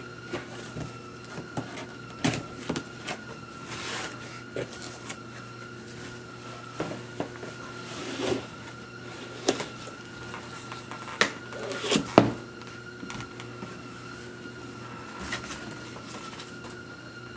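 A cardboard box being handled and opened: scattered scrapes, taps and rustles of its flaps, the loudest about twelve seconds in. A steady background hum with a thin high whine runs underneath.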